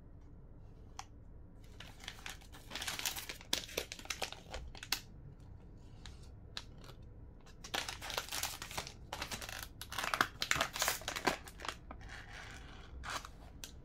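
Plastic snack packets crinkling as they are picked up and handled, in two longer spells of rustling and a short one near the end.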